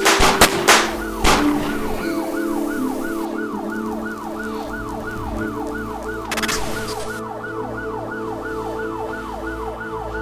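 A quick volley of about five gunshots in the first second and a half, each ringing out. Then a police siren in fast yelp mode, rising and falling about three times a second over a steady low hum.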